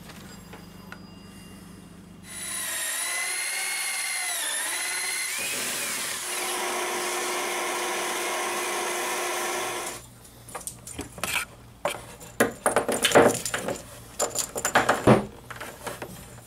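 Power drill boring a cable hole through a table top: the motor runs for about seven seconds, its pitch dipping as the bit bites, then steadies and stops. It is followed by a series of knocks and clicks as the black plastic ring is handled and pressed into the new hole.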